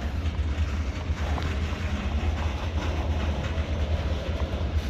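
Steady low rumble from a CSX freight train in the rail yard.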